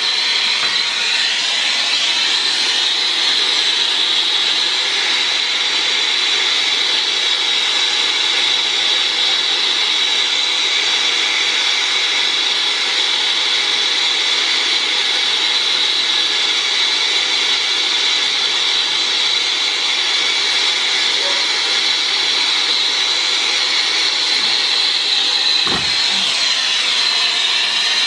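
Brazing torch flame hissing steadily as it heats a brazed copper refrigerant joint to sweat it apart. There is a single brief knock near the end.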